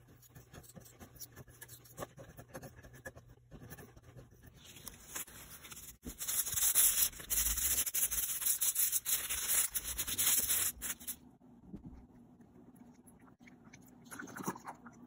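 Faint scraping and small clicks of a walnut spoon being carved. Then several seconds of loud, even rubbing as the walnut spoon is sanded, which cuts off suddenly about two-thirds of the way in.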